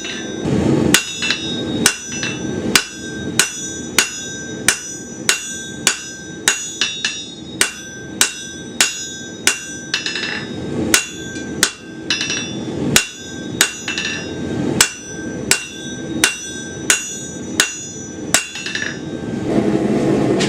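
Hand hammer striking hot steel bar stock on an anvil, roughly once a second, each blow followed by a bright metallic ring, while forging a shoulder into the bar. The blows stop near the end.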